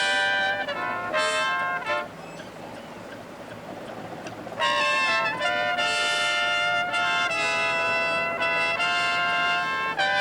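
Drum corps horn line playing held brass chords, breaking off about two seconds in, then coming back in after a couple of seconds with a series of sustained chords that change step by step.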